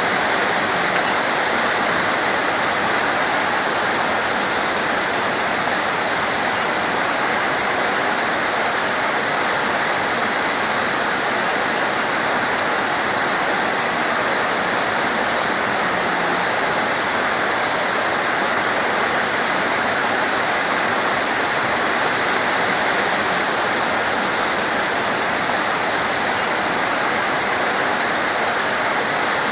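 Heavy, torrential rain falling steadily as a dense, even hiss, with one sharp tick about halfway through.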